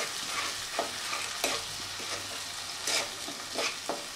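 A wooden spatula stirring and scraping a spice paste of tomato and ground spices as it fries in oil in a nonstick kadai. A steady sizzle runs under a few irregular scraping strokes.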